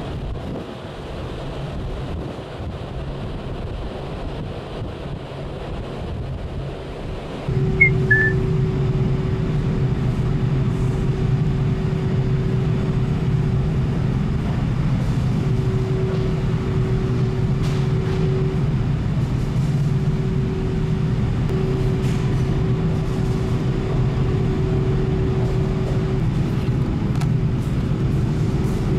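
Wind and sea noise for about seven seconds, then a sudden switch to the steady low drone of a car ferry's engines heard on board, with a constant hum tone that comes and goes. A brief high chirp sounds just after the switch.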